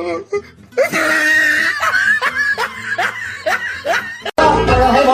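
A person laughing in a run of short, repeated bursts, then a sudden cut to upbeat music about four seconds in.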